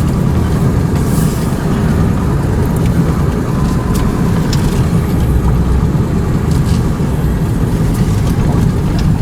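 A vehicle driving along, with a steady rumble of engine and road noise.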